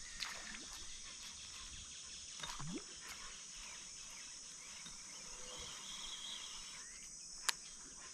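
Insects buzzing steadily and high-pitched in the riverside vegetation. A brief faint swish as a lure is cast comes about two and a half seconds in, and a single sharp click near the end.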